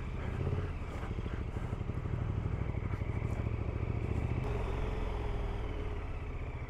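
KTM motorcycle engine running steadily while riding, with an even, rapid pulse.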